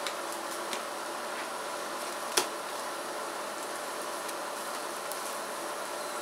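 Sopes frying in oil in a nonstick pan on a portable induction burner: a steady hiss, with a few light clicks as a silicone spatula turns them over. One sharper tap comes about two and a half seconds in.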